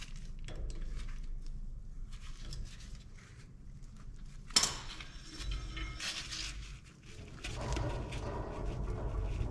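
Light metal clicks and scraping from hand tools and parts on a trailer wheel hub being reassembled, with one sharp click about halfway through and a fuller rubbing noise near the end.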